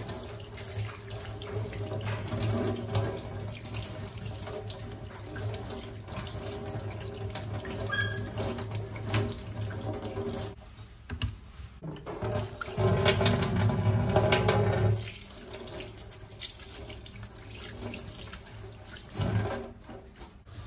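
Tap water running into a stainless steel sink while raw pork belly is rinsed and squeezed by hand under the stream. The flow drops off briefly about halfway, then runs louder for a few seconds.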